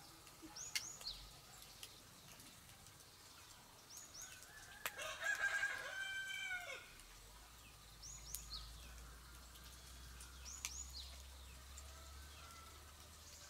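A rooster crows once, about five seconds in, for nearly two seconds, with short high bird chirps every few seconds around it.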